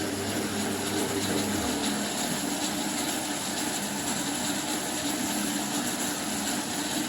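Gorenje PS 443 washing machine with its Sever Subotica motor running, a steady mechanical whir and rumble. A low hum underneath drops out about two seconds in while the rest keeps going.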